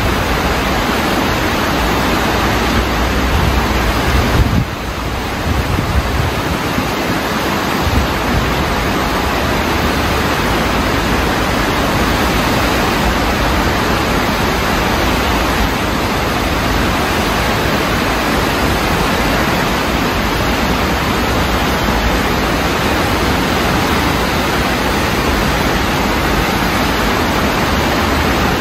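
Floodwater in a swollen urban stream rushing past concrete bridge pillars: a loud, steady roar of fast-moving water, with a brief drop in the low rumble about five seconds in.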